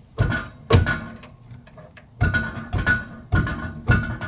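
Six sharp metallic knocks, irregularly spaced, each followed by brief ringing: a hand banging on the 2000 Toyota Celica's muffler and exhaust to force a hanger into place.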